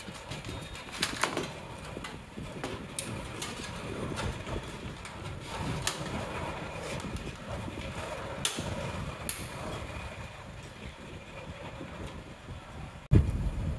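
Scattered light clicks and knocks of hands handling the desktop PC's case parts and screws during reassembly, over a low steady background rumble, with a sudden louder thump near the end.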